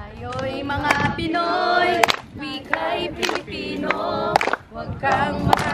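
A group of students singing together in unison as part of a sabayang pagbigkas, a Filipino choral recitation, with a few sharp claps among the sung lines.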